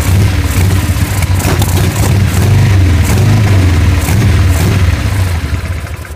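Harley-Davidson Sportster 883 V-twin engine running unevenly with irregular pops, then dying away near the end: the engine is misfiring and won't hold an idle.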